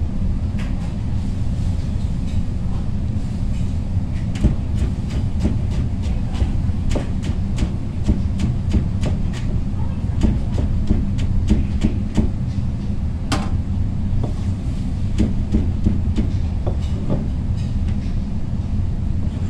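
Kitchen knife chopping squash into strips on a plastic cutting board: runs of sharp taps, two or three a second, with one louder knock about two-thirds of the way through, over a steady low rumble.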